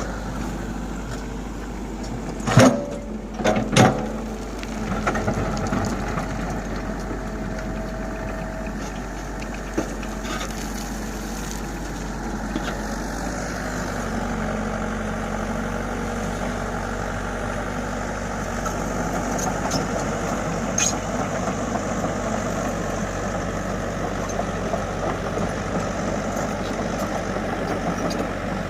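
Komatsu excavator's diesel engine running steadily, with a few loud sharp knocks about two to four seconds in.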